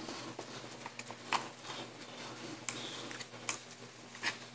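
Metal fork and tongs clicking and scraping on a ceramic plate while mashing fried liver into granules, in irregular light taps with a few sharper clicks.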